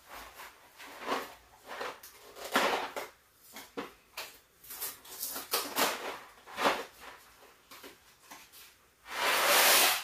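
Cardboard boxes of dry pasta being handled and opened, rustling and crinkling in short irregular bursts. Near the end comes about a second of loud rushing as the dry pasta is poured from a box into the pot of boiling water.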